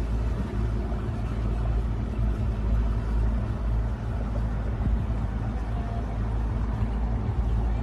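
Steady low rumble of a boat under way, with no speech.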